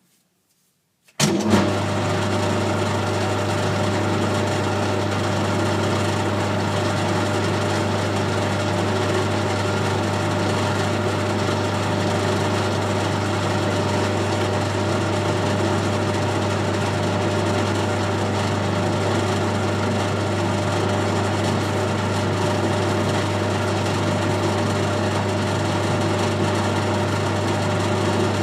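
Colchester Student lathe starting up about a second in and then running steadily with a low hum, set up for screw-cutting and taking a threading pass on an internal 3/8-12 ACME thread.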